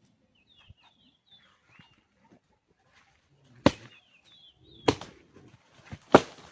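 Small birds chirping in short quick notes, then three sharp loud knocks, each a little over a second apart, in the second half.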